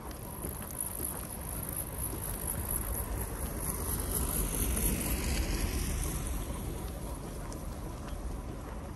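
A vehicle driving past, swelling to its loudest about halfway through and then fading.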